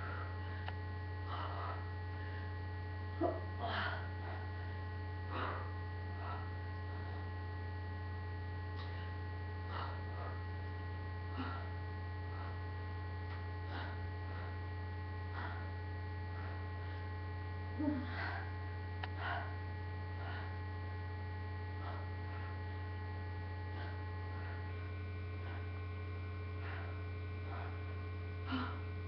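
Steady low electrical mains hum. Faint brief sounds come every second or two.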